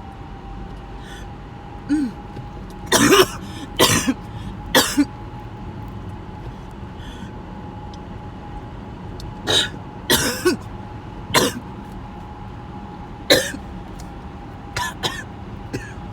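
A person coughing and clearing their throat in short, sharp bursts, in loose clusters a few seconds apart: the tail end of a prolonged coughing fit. A faint steady hum runs underneath.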